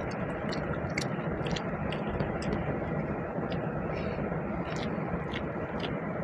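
A person chewing a mouthful of basmati pulao and chicken curry, with short wet mouth clicks every so often over a steady background noise.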